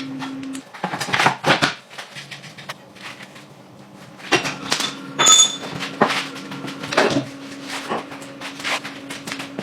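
Irregular knocks and clicks of tools and parts being handled, over a steady low hum; one sharper knock about five seconds in carries a brief ring.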